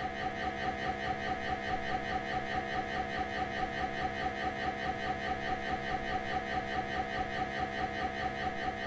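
MRI scanner running a scan sequence: its gradient coils give a steady, rapidly repeating electronic pulsing at a fixed pitch, several beats a second, unchanging throughout.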